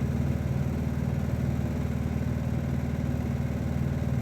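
Steady low hum, like a motor or fan running, with no change in level or pitch.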